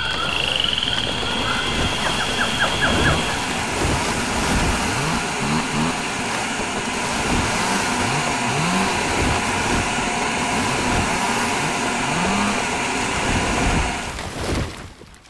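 Motor engine noise, dense and steady, with repeated short rising revs, fading out about a second before the end.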